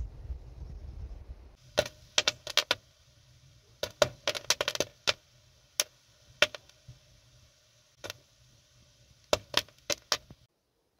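A low rumble for about the first second and a half, then popcorn kernels popping in an enamelled pan on a stove: sharp, irregular pops, sometimes in quick clusters and sometimes a second or more apart, stopping shortly before the end.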